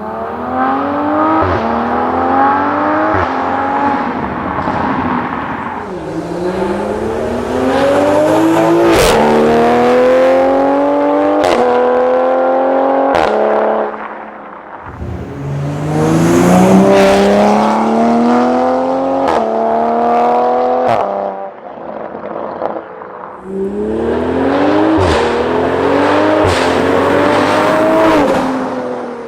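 Tuned Toyota A90 Supra's turbocharged B58 inline-six, fitted with a catless downpipe and an aftermarket cat-back exhaust, accelerating hard through the gears in about four runs. The note climbs, then drops at each quick upshift with a sharp crack.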